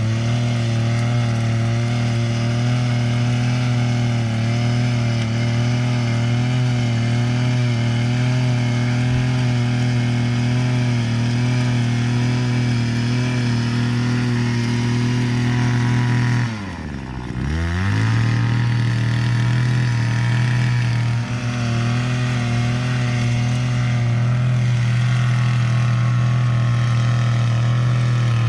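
Earthquake two-cycle mini cultivator engine running steadily at high speed. About two-thirds of the way through, its speed drops sharply for about a second and then picks straight back up.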